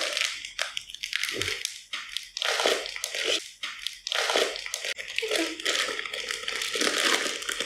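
Crinkling and crackling of thin plastic bags of Lego pieces being handled, in irregular bursts.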